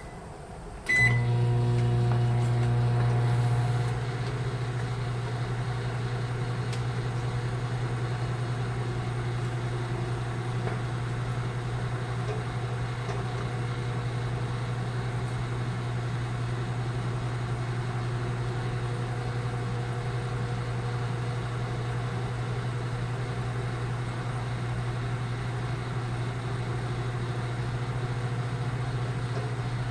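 Microwave oven starting with a short keypad beep about a second in, then running on time cook to heat a cup of water: a steady low hum, a little louder for the first few seconds before settling to an even drone.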